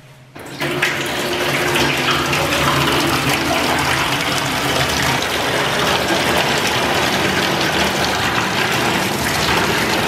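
Water running hard from a faucet into a stainless steel wash sink, filling it for sanitizer solution. The steady rush starts about half a second in.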